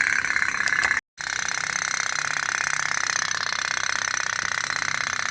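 Toy pop-pop steam boat running, its candle-heated tin boiler making a steady, rapid putting. The sound drops out for a moment about a second in.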